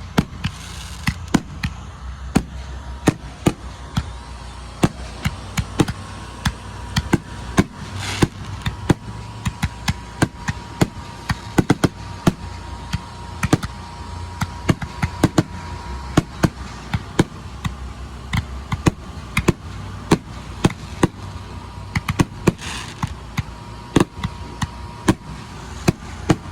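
Fireworks going off in a show: a long, irregular series of sharp bangs from bursting shells, at times several a second, over a low steady rumble.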